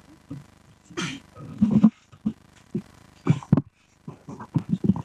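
Short snatches of low, indistinct voices and breathy mouth noises picked up by a desk microphone, with no clear words. There are breathy hisses about a second in and past the three-second mark, and quick mumbled syllables near the end.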